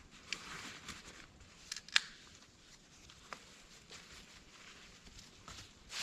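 Rustling and crinkling of things being handled, with several light clicks and one sharp click about two seconds in.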